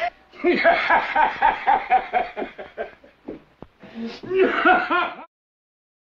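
A woman laughing hard, a rhythmic cackle of short bursts for about three seconds, then a couple of faint clicks and a second short outburst before the sound cuts off suddenly about five seconds in.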